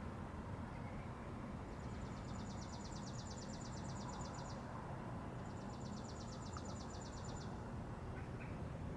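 A small bird's rapid, dry, high-pitched trill, sung twice, each lasting two to three seconds. Under it runs a steady low rumbling background noise, with no thunderclap.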